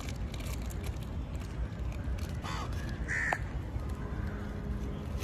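Crows cawing: two short calls about halfway through, over a steady low rumble.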